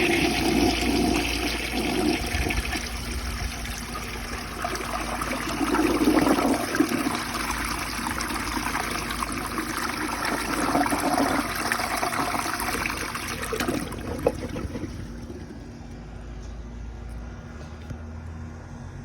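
A 1965 Rheem Claymore toilet flushing: water rushes through the bowl loudly and evenly, then dies down about fourteen seconds in to quieter running water.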